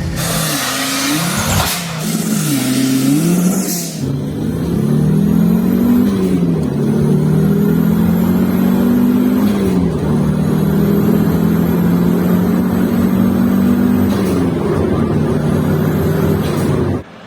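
Audi 80 B2 turbo quattro's AAN turbocharged inline-five: revved in quick blips, then held in longer climbs whose pitch rises and drops back several times, with a faint high whistle climbing alongside. The sound cuts off suddenly near the end.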